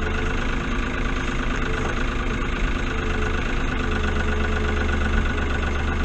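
Farm tractor engine running steadily, heard from inside the cab.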